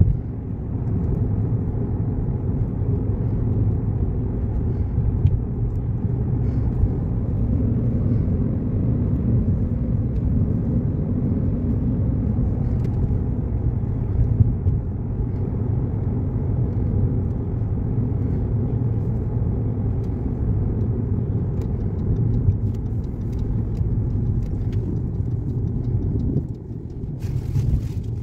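Steady low rumble of a car driving, engine and tyre noise heard from inside the cabin. It dips briefly near the end.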